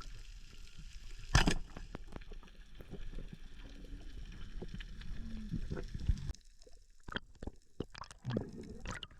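Water sounds recorded underwater while diving on a coral reef: low muffled gurgling with many small crackling clicks and one sharper click about a second and a half in. The low rumble drops away about six seconds in.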